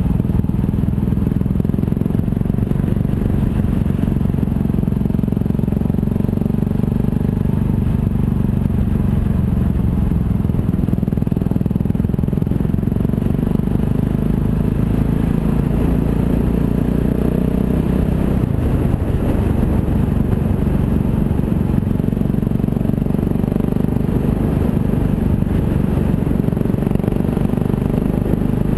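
Motorcycle riding along at a steady pace, its engine running under a constant low rumble of wind and road noise on the camera's microphone.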